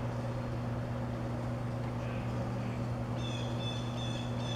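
A bird calling in a quick series of short, high notes, starting about three seconds in, over a steady low hum.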